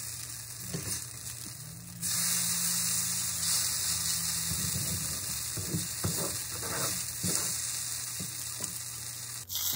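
Crêpe batter sizzling in a hot frying pan while a plastic spatula scrapes at a crêpe stuck fast to the old pan's surface, in short strokes through the second half. The sizzle gets louder about two seconds in.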